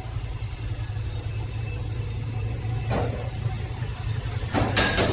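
Supercharged Nissan Patrol Y62's 5.6-litre VK56VD V8 idling with a steady low rumble, with a single knock about three seconds in and a rush of noise near the end.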